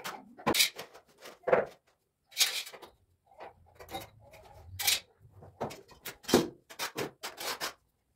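Steel notched trowel scraping mortar onto ceramic skirting-tile strips and clinking against the tiles and the mortar tub as the strips are set against the wall: a run of irregular scrapes and sharp taps.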